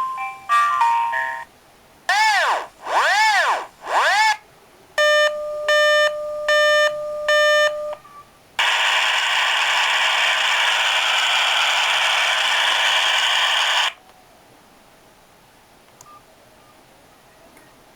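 Built-in call background sound effects of a ciPhone clone phone played one after another: the end of a short electronic melody, then rising-and-falling electronic glides, four pulsed electronic beeps over a steady tone, and about five seconds of steady hiss that cuts off suddenly.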